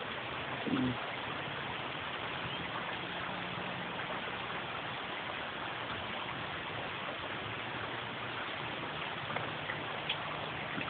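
Heavy rain pouring down steadily, an even hiss of falling water.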